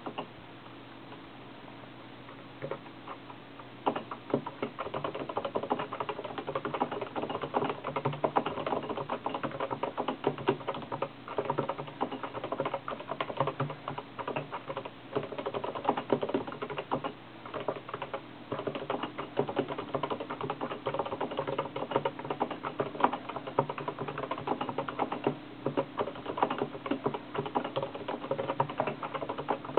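Fast, continuous touch typing on a computer keyboard: a rapid, irregular stream of keystroke clicks that starts about four seconds in, after a couple of single key presses.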